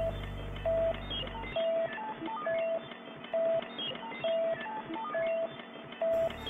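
Background electronic music in a thin, telephone-like filtered passage: a repeating pattern of short beeping notes, a lower one about once a second with quicker higher ones between. The bass drops out about a second and a half in, and the full sound returns near the end.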